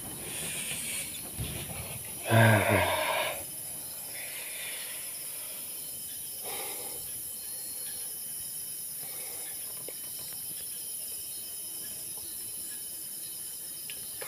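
Crickets and other night insects trilling steadily, with one brief louder sound about two and a half seconds in.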